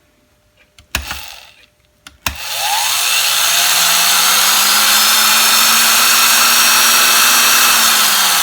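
Vintage Thor quarter-inch electric drill test-run: a knock, then a click as it is switched on a little over two seconds in, and its motor spins up and runs loud and steady with a hissing whine, starting to wind down near the end. It still works after the cleanup.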